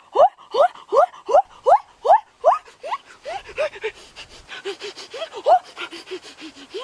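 An animal's repeated short cries, each sweeping up in pitch, about three a second, turning into softer, lower, shorter calls about halfway through.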